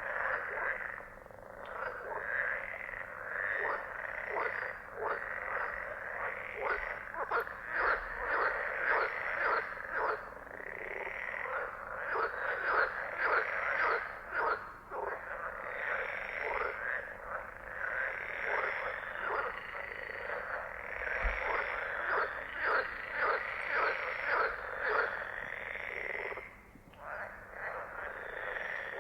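A chorus of frogs croaking, many rapid pulsed calls overlapping without a break, easing off briefly near the end.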